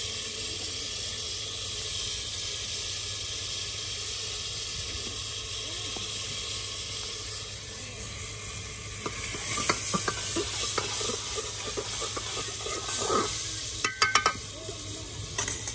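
Food sizzling in a cooking pot while being stirred, with scraping strokes from about nine seconds in and a few sharp knocks of the utensil against the pot near the end.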